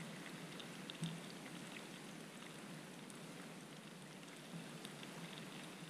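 Chicken wings in sour cream simmering in a pan over a low campfire: a soft, even sizzle with a few faint ticks, one small click about a second in.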